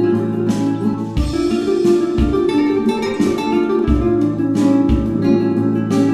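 Background music: plucked acoustic guitar over a steady low beat.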